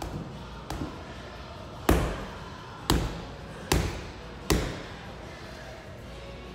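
Boxing gloves punching a Century heavy bag: a couple of light taps, then four hard thuds about a second apart, the first of them the loudest.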